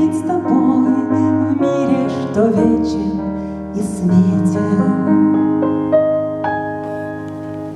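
Instrumental ending of a song: keyboard chords held and changing every second or so, growing slowly quieter over the last few seconds.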